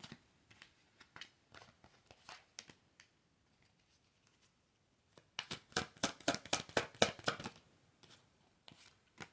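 Tarot cards being shuffled and handled: scattered card clicks over the first few seconds, a short pause, then a dense run of rapid clicks about five seconds in lasting some two seconds, and a few more card taps near the end.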